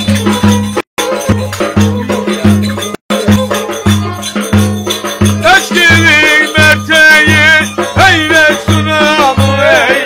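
Live Turkish folk dance music: a violin melody over a deep, steady beat about twice a second and shaker-like percussion. About halfway through a man starts singing a wavering, ornamented line. The sound drops out for an instant twice near the start.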